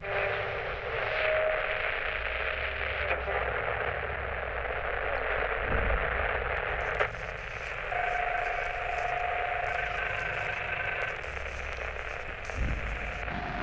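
Portable FM radio receiver hissing with static between stations as it is tuned. Steady whistling tones come and go in the hiss, one about a second in and another in the second half.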